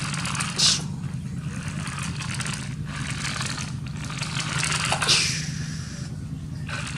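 Toy vehicles scraping and clattering as they are handled, with two sharper scrapes, one just after the start and one about five seconds in, over a steady low hum.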